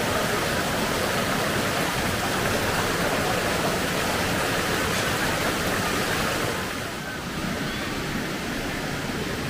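Rushing river water, a steady even noise that eases off slightly about two-thirds of the way through.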